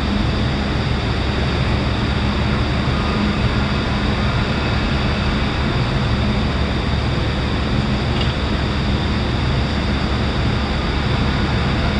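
A steady, low engine drone with a constant hum that does not change in pitch.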